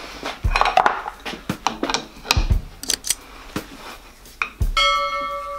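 Scattered light metallic clinks, taps and a few dull knocks, then, about three quarters of the way in, a bright ringing chime of several held notes: the notification-bell sound of a subscribe-button animation.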